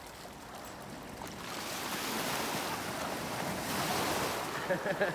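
Small waves washing onto a beach: a steady rush of surf that swells about a second and a half in.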